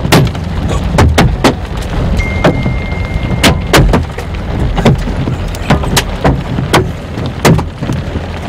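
Large hailstones banging on a vehicle's roof and windshield: loud, irregular hits one or two a second over a steady rumble of hail and road noise. A short steady beep sounds about two seconds in.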